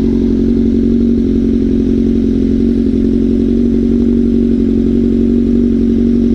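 Straight-piped Kawasaki ZX-6R sport bike's inline-four engine running at a steady cruise, a constant engine note with no change in revs.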